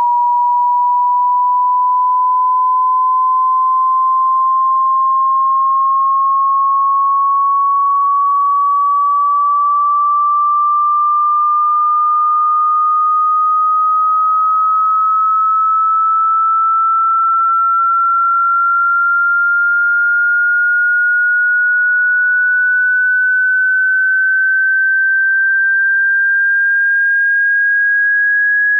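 Pure sine-wave hearing-test tone: a single clean tone at constant loudness, gliding slowly and evenly upward in pitch.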